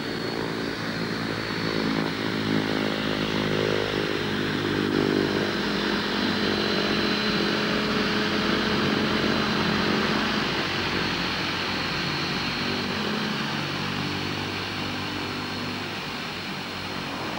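Twin-turboprop aircraft, a de Havilland Canada Twin Otter, taxiing with its engines running steadily. A thin high turbine whine sits over the deeper propeller drone.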